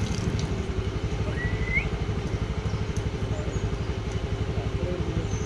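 An engine idling with a steady, rapid low throb. A short rising chirp comes about one and a half seconds in.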